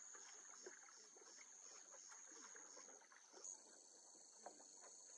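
Faint insects trilling: a steady high-pitched chirring that pulses a few times a second and changes pitch about three and a half seconds in, with faint scattered ticks.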